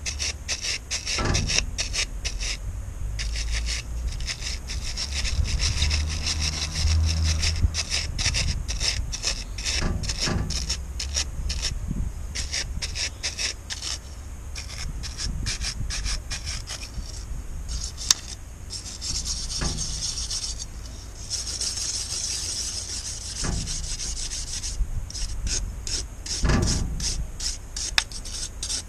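Small brass wire brush scrubbed back and forth over metal parts in quick, scratchy strokes.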